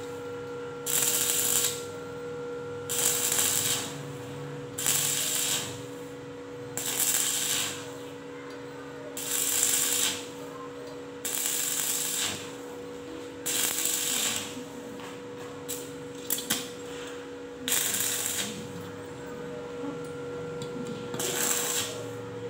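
Stick (shielded metal arc) welding arc crackling in short bursts, about one every two seconds with a longer pause midway, as the electrode is struck and stopped again and again along a steel bar in a run of short welds.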